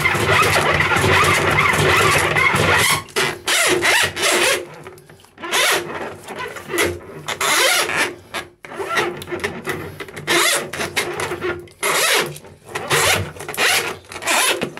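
Handheld drain auger being cranked in a blocked bathroom basin drain: its coiled steel cable scrapes and rattles as it spins in the pipe. It runs steadily for about three seconds, then in short spells of under a second with brief pauses as the cable is worked back and forth.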